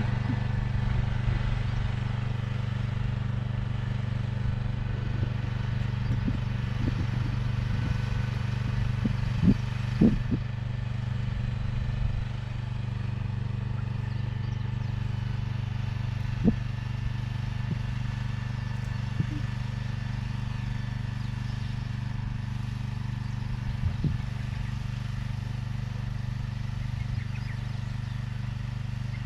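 Engine of a mechanical vegetable transplanter running steadily in the field, with a few sharp clacks from the machine now and then.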